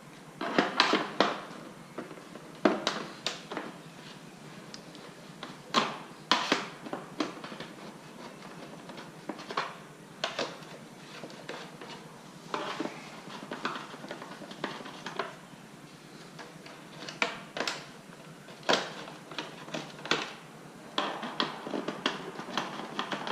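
Screws being undone with a screwdriver from an LG vacuum cleaner's housing. Irregular clicks, scrapes and clatter come in clusters every few seconds as the body is handled and turned over.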